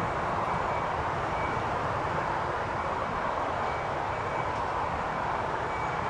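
Steady distant engine rumble that holds level throughout, with faint short high-pitched tones here and there.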